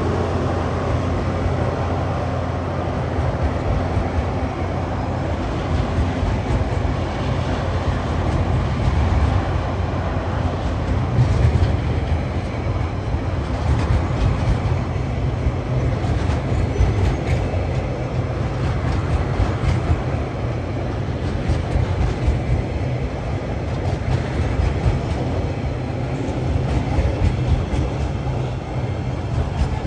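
Loaded log wagons of a freight train rolling past close by: a steady low rumble with the wheels clicking over the rail joints.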